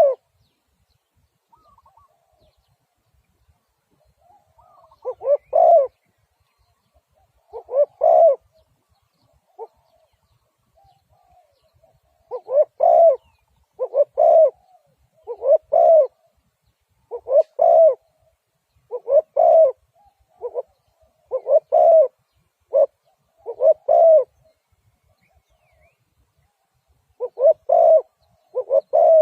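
Spotted dove cooing in repeated low phrases: a few scattered calls, then about nine in a row, roughly one every second and a half, and two more near the end.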